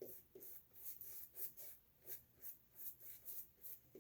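Boar-bristle shaving brush working Williams soap lather, a faint rhythmic wet swishing of about three strokes a second. The lather stays foamy and bubbly rather than turning creamy.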